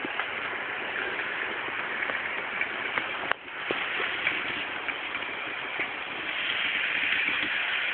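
N gauge model EF66 locomotive running along the track with its wagon: a steady hissing whir from the small motor and the wheels on the rails, with scattered light clicks. A sharper click comes a little past three seconds, after which the sound briefly drops and builds back.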